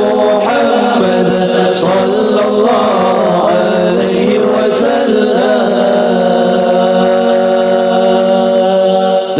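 Men's voices chanting an Acehnese sya'ir a cappella, with a low note held steady beneath the melody. The low note drops out near the end as a voice slides up into a new line.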